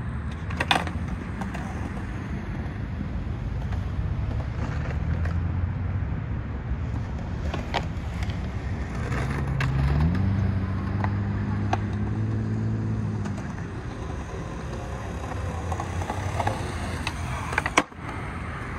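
Skateboard wheels rolling on concrete, with a few sharp clacks of the board. Under them runs the hum of a motor vehicle engine, which rises in pitch about halfway through.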